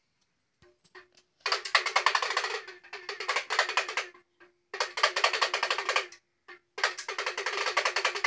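Plastic baby rattle shaken hard in three quick bursts, the first starting about a second and a half in, each a fast run of rattling clicks lasting one to three seconds with short pauses between.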